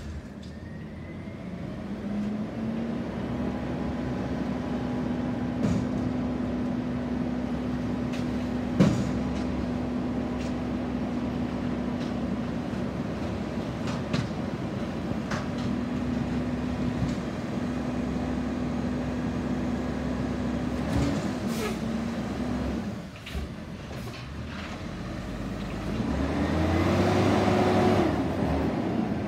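Waste Management front-loading garbage truck running, its diesel engine holding a steady tone for most of the time, with a few sharp clanks, the loudest about nine seconds in. Near the end the engine revs up and back down as the truck pulls forward.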